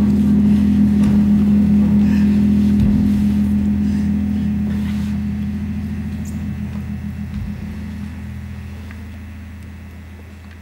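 Electric bass guitar holding a low sustained drone, fading slowly until faint near the end.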